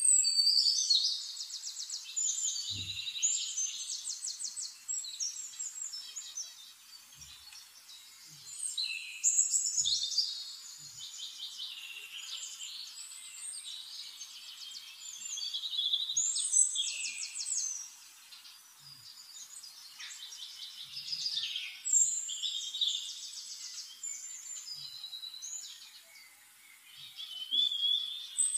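A songbird singing in bouts of rapid high trills and chirps, with short pauses between the bouts.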